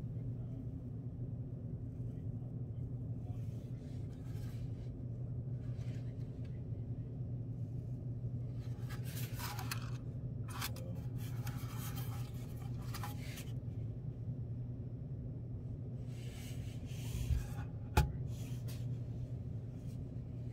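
Handling noise from a metal-cased SCADAPack 334 RTU: several bouts of rustling and scraping as it is turned over in gloved hands, then a single sharp knock near the end as it is set down on a desk. A steady low hum runs underneath.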